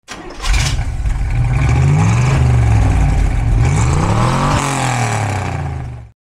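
1963 Lincoln Continental's V8 engine revved up and let fall back twice, its pitch rising and falling, cutting off abruptly near the end.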